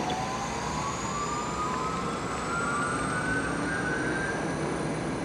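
Jet engines spooling up, a steady roar with a high whine that rises in pitch throughout.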